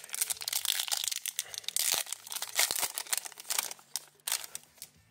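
Foil wrapper of a hockey card pack crinkling as it is torn open and handled in the hands. The crinkling is loudest around the middle and stops shortly before the end.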